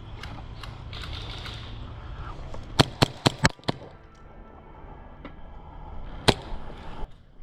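Airsoft gas pistol shots: five sharp cracks in quick succession just under three seconds in, then a single shot about three seconds later.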